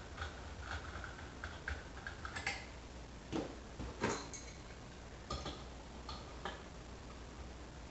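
Irregular light clicks and ticks of small metal parts being handled as the adjustment knob is worked off a CO2 regulator on a CO2 cylinder, about ten of them spread over several seconds.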